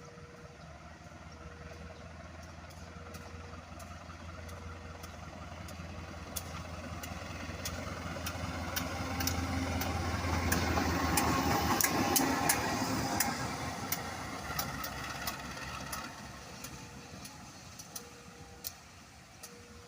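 A diesel train approaching and passing close by. The engine drone and wheel noise build to a peak about halfway through, with the wheels clicking sharply over the rail joints, then fade away. A short beep repeats about once a second at the start and again near the end.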